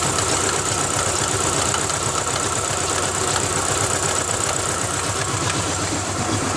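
A 2000 Ford Ranger's 2.5L four-cylinder engine idling roughly, with a fast, even slapping tick from the front of the engine. The owner hears it as the timing belt slapping against the timing cover and asks whether the belt is too loose.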